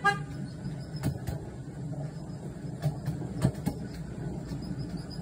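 Miniature railway train running along the track: a steady low rumble from the wheels on the rails, with scattered sharp clicks and clanks as they cross rail joints and points.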